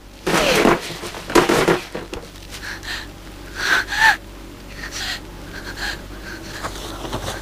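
A person's breathy gasps and short cries that slide down in pitch: three stronger ones in the first four seconds, then fainter, shorter ones.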